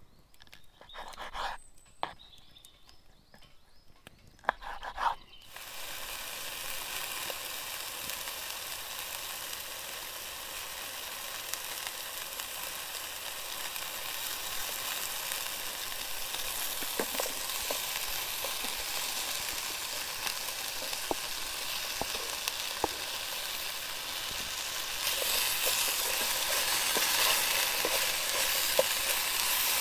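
A few light knocks, then about five seconds in, stir-fry food hits a hot pan and starts sizzling steadily, with scattered small ticks of stirring. The sizzle grows louder near the end.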